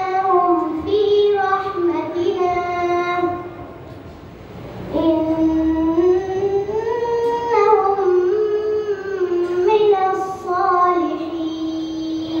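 A boy chanting Quran recitation into a microphone, with long held, melodic notes. One phrase ends about three and a half seconds in, and a new long phrase starts about a second and a half later.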